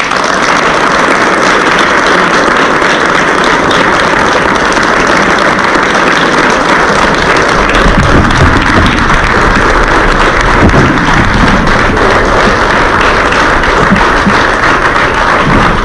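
A roomful of people applauding, loud and steady, starting all at once.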